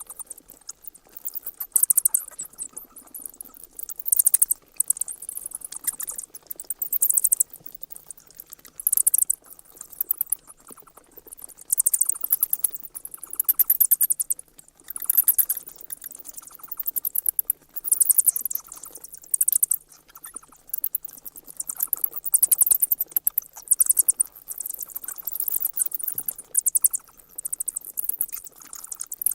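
Bats squeaking: rapid, high-pitched chittering in bouts of a second or two, with short pauses between.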